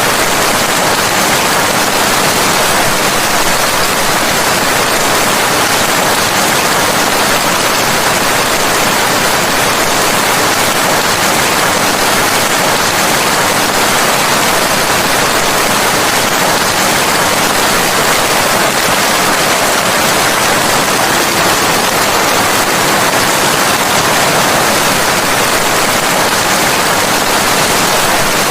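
Rain falling steadily: an even, unbroken hiss with no thunder or single drops standing out.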